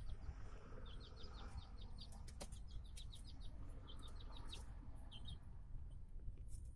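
Small chicks peeping: short, high peeps in quick runs, over a steady low rumble.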